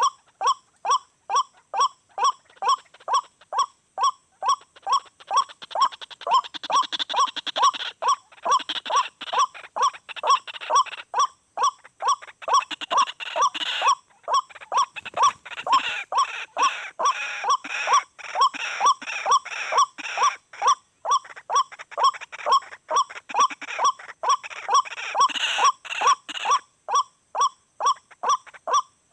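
White-breasted waterhen (ruak-ruak) calls: a harsh note repeated steadily about twice a second without a break. More jumbled calling joins in from about six seconds in until near the end.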